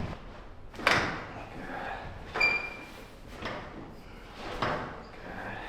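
Handling noise on a chiropractic treatment table as the patient's feet are checked: four short knocks and shuffles about a second apart, the first the loudest, one of them with a brief squeak.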